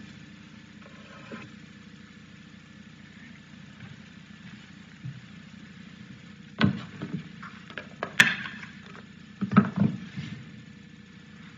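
Steady low hum of the sanctuary sound system or air handling, with a few knocks and rustles as the pulpit microphone and lectern are handled. The sharpest is a click about eight seconds in.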